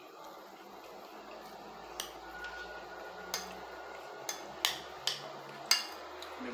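Fork clinking and scraping against a plate of food, about six short clicks from about two seconds in, the loudest near the end.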